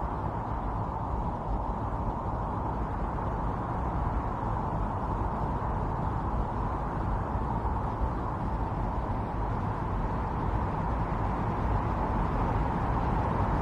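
Strong snowstorm wind blowing steadily, a dense, even rush with no gusts or breaks, swelling a little near the end.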